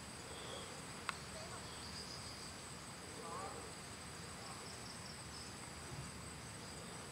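Steady high drone of insects, made of continuous high-pitched tones, with a single sharp click about a second in and a few faint chirps.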